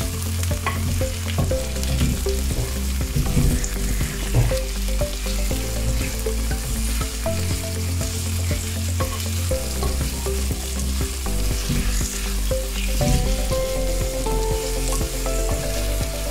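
Chicken pieces and sliced onions sizzling in oil in a clay pot, stirred with a wooden spatula that scrapes and knocks against the pot. A steady low hum runs underneath.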